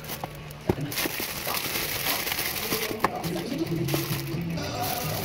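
Clear plastic wrapping crinkling and a paper bag rustling as a bundle of kitchen utensils is handled, with two sharp clicks.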